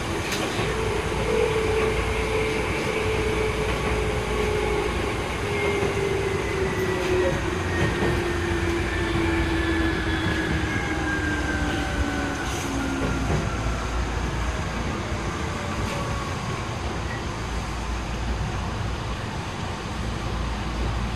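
Running sound inside a Tokyu 8500 series electric train car, recorded aboard motor car DeHa 8535. The motor and gear whine falls slowly and steadily in pitch over about twelve seconds as the train slows for its stop at a station, then the whine fades under the steady rolling noise.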